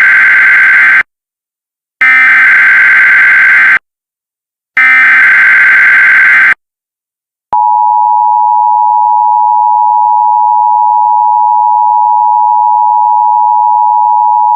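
Emergency Alert System tones: three bursts of the warbling SAME digital header, which encodes the alert, followed about 7.5 s in by the steady two-tone EAS attention signal that announces an emergency alert.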